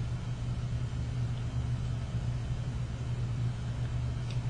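A steady low hum with no other clear sound.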